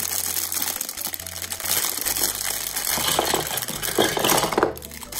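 Clear plastic bag crinkling as it is handled and shaken, with plastic LEGO Duplo bricks clattering out onto a table in a flurry of clicks and knocks from about three seconds in. Background music runs underneath.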